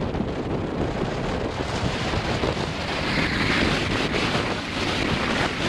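Wind buffeting the microphone over the rush of choppy water around a sailboat under way, with a louder, hissier swell about three seconds in.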